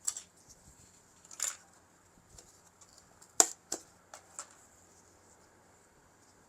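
Several short, sharp clicks and taps of small laptop parts being handled. The loudest comes about three and a half seconds in, followed quickly by two or three lighter ones, over a faint steady high hiss.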